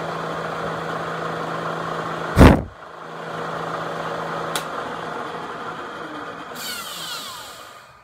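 Benchtop drilling machine's motor and spindle running with a steady hum. A single loud clunk comes about two and a half seconds in. The machine then runs on and winds down, with a falling whine near the end.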